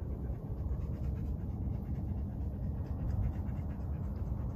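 A dog panting steadily, under a low rumble of wind on the microphone.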